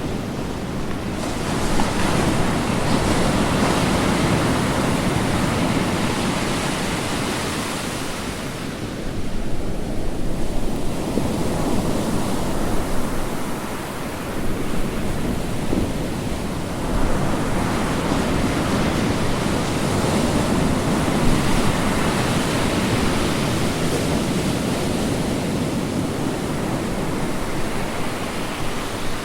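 Sea waves breaking on a shore: a continuous rush of surf that swells and ebbs as each wave comes in and draws back, with lulls every several seconds.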